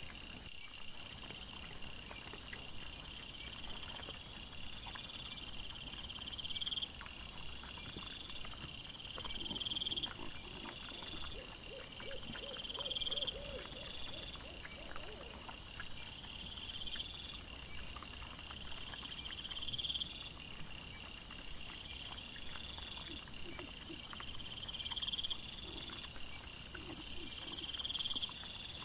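Night insect chorus of crickets and katydids: rhythmic chirping that swells and fades about every three seconds. There are a few brief lower pulsed calls in between, and a high hiss comes in near the end.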